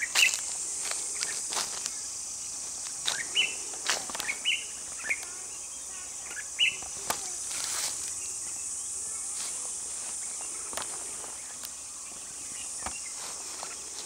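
Insects keep up a steady high-pitched drone while a bird gives short high chirps several times in the first seven seconds. Footsteps crunch and rustle through dry grass.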